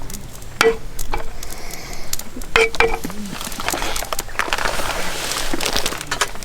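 Drinking cups or glasses clinking together in a toast: a sharp clink with a short ring, then two more in quick succession, followed by a couple of seconds of hiss.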